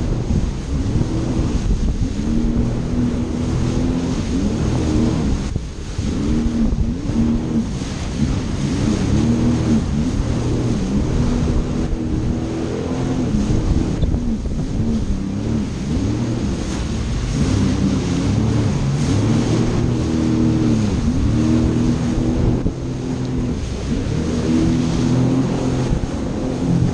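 Jet ski engine running under way, its pitch rising and falling again and again, with wind rushing on the microphone.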